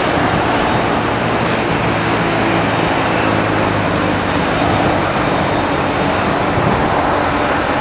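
Boeing 737 jet engines running steadily at low power as the airliner taxis and turns onto the runway: an even, unbroken engine noise with a low hum underneath.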